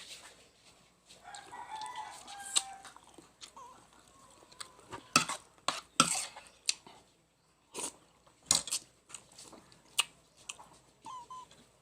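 A rooster crows once, from about a second in, for about two seconds. After it come a dozen or so sharp, loud crunches and clicks of chicken bones being chewed, with a short faint chirp near the end.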